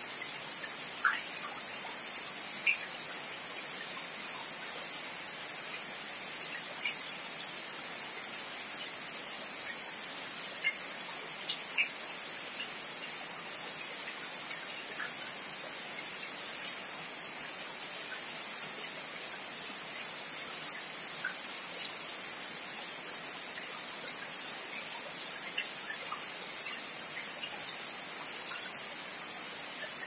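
Steady rain falling on trees and wet ground: an even, constant hiss with scattered single drops plinking and splatting now and then.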